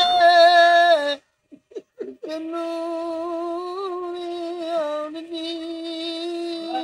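A man singing a Punjabi song unaccompanied, holding long drawn-out notes. The first note breaks off about a second in, and after a short pause a second long, slightly wavering note is held through the rest.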